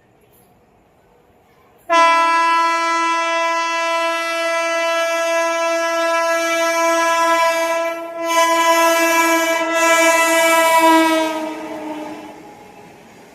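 Indian Railways locomotive horn sounding one long blast, about nine seconds, that starts suddenly about two seconds in, briefly dips in strength, then fades out near the end.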